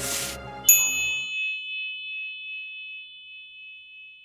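Logo sting: a short whoosh, then a single bright chime struck about two thirds of a second in, ringing and slowly fading while the last of the background music dies away.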